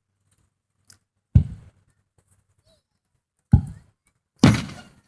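Aerial fireworks shells bursting: three sharp booms, each dying away, about a second and a half in, at three and a half seconds, and just under a second later, the last the loudest.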